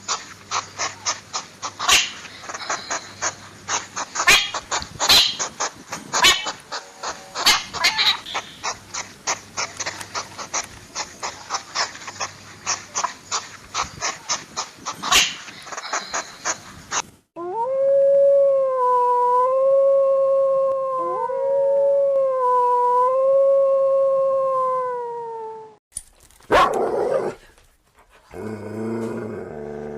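A rapid run of short, sharp calls or clicks, then, from a little past halfway, a dog howling: one long, wavering howl of about eight seconds, with a second voice gliding up briefly beneath it.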